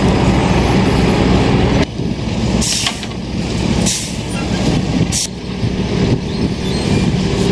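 A large truck's engine running steadily, with several short, sharp hisses of air.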